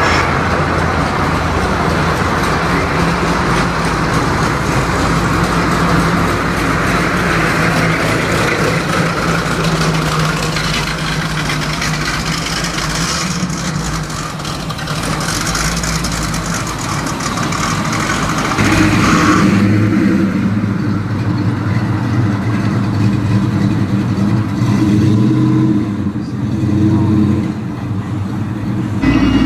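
Car engines running. About two-thirds of the way through, a louder, deeper engine comes to the fore and its pitch wavers.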